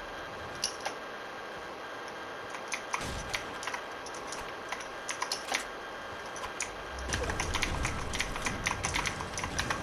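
Computer keyboard keys clicking in irregular single presses and quick clusters while a game is played. A low rumble joins about seven seconds in.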